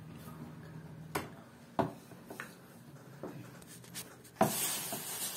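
Scattered light knocks and rubbing of a wooden rolling pin and hands on a floured wooden pastry board as dough rounds are rolled out, about six knocks in all, the loudest near the end. A steady hiss starts near the end.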